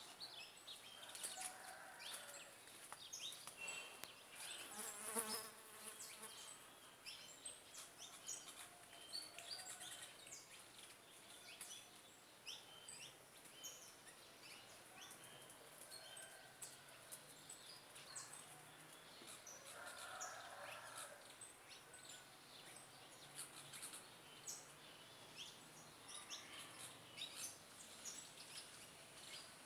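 Small birds chirping faintly: many short, high chirps scattered throughout, with a few softer, lower calls.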